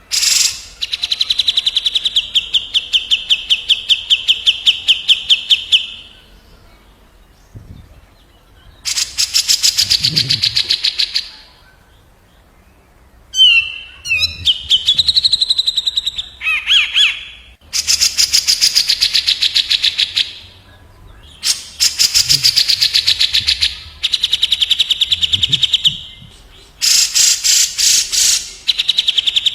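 Grey-cheeked bulbul (cucak jenggot) and olive-winged bulbul (kapas tembak) songs trading phrases. Most phrases are fast, harsh rattling trills of several notes a second, lasting a few seconds each with short pauses between. Around the middle come a few quick whistled up-and-down notes.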